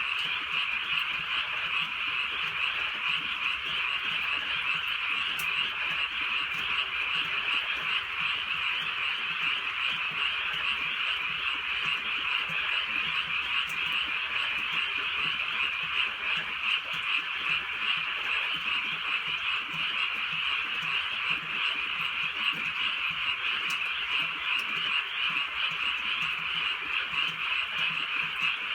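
A dense chorus of many frogs croaking together at night, a steady unbroken wall of calls without pause.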